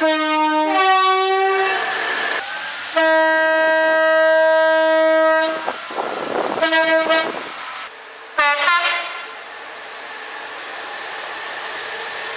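Train horns sounding in separate blasts: a two-note call, a low note then a higher one, then one long note of about two and a half seconds, then two short toots. Near the end a train runs by with a steady rushing noise.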